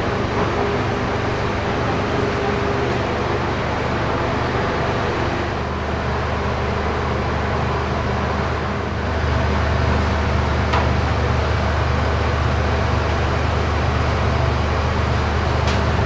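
Steady hum and rushing noise inside a passenger train coach, with a deeper hum growing stronger about nine seconds in.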